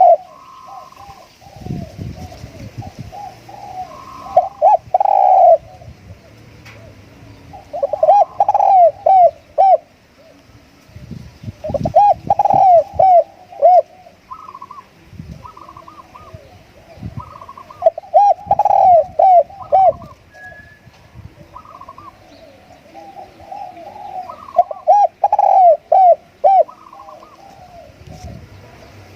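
Spotted dove (nok khao yai) cooing: a decoy bird's song given in loud repeated phrases of several coo notes, one bout about every six seconds.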